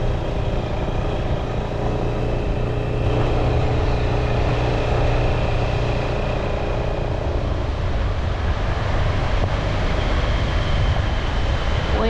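Motor vehicle engine running at a steady speed, with wind and road rumble.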